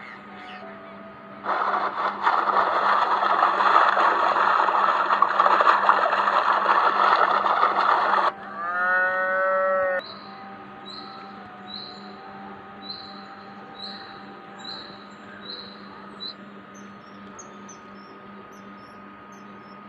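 Cattle mooing: a long, loud, rough low about one and a half seconds in, then a shorter call that ends about halfway through. After it, a faint chirp repeats under a steady hum.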